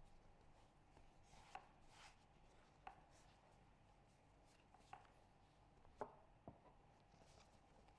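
Faint handling sounds of bread dough being shaped with a plastic rolling pin on a marble countertop: about half a dozen light, scattered taps and knocks, the sharpest about six seconds in.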